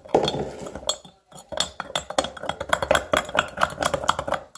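A spoon stirring hot chocolate mix into hot water in a glass mug, clinking quickly and repeatedly against the glass, with a short pause about a second in.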